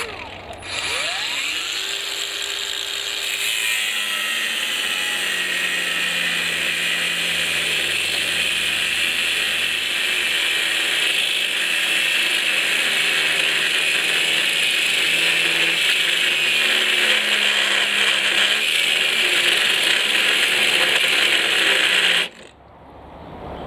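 18 V brushless angle grinder with a 1.2 mm cut-off wheel cutting through 5 mm thick mild steel flat bar. The motor winds up with a rising whine about a second in, then the disc runs steadily through the steel, and the sound cuts off suddenly near the end.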